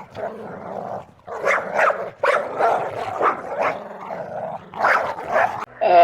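A dog barking over and over, short sharp barks often coming in quick pairs. Near the end a different long, steady-pitched call begins.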